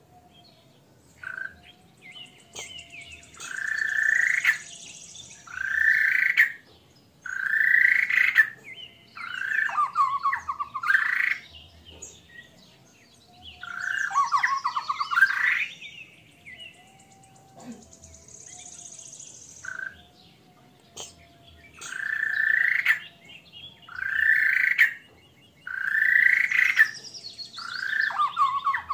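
White-rumped shama (murai batu) singing frog-like croaking phrases, its 'frog' imitation, repeated about every two seconds in runs of four, with short higher chirps between.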